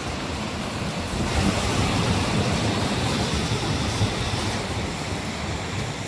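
Mountain stream water rushing steadily over small concrete weirs, with wind rumbling on the microphone. The sound swells from about a second in and eases near the end.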